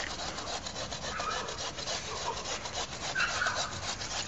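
A saw worked by hand through a tree trunk: a steady series of quick wood-scraping strokes, with no engine.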